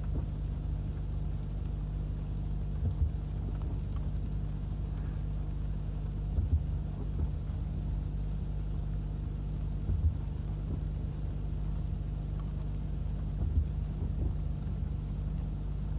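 Steady low hum of an idling vehicle engine, with a soft low thump about every three and a half seconds.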